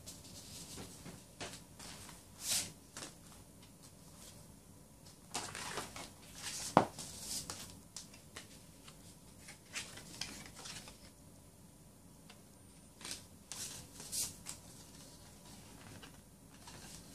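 Cardboard and paper rustling and sliding as a boxed CD album's slipcase and inserts are opened and handled, with scattered light taps and one sharp knock about midway.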